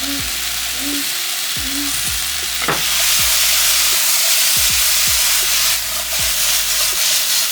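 Vegetables and onions sizzling in hot oil as they are stir-fried in a pan, a steady hiss that grows a little louder about three seconds in.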